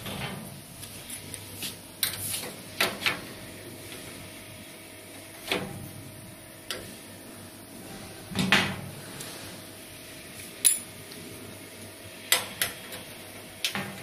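Sheet-steel cabinet and screwdriver knocking and clanking as a caster wheel is screwed onto the cabinet: about ten sharp, separate knocks spread out, the loudest about eight and a half seconds in.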